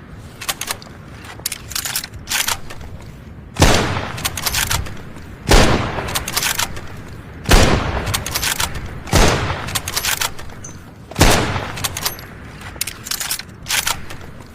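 MAS-36 bolt-action rifle: several clicks and clacks of the bolt first, then five loud shots about two seconds apart, each with a ringing tail and followed by the bolt being worked for the next round.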